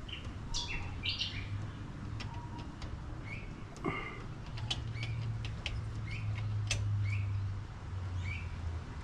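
Birds chirping repeatedly in short, high calls over a low, steady hum, with a few faint clicks.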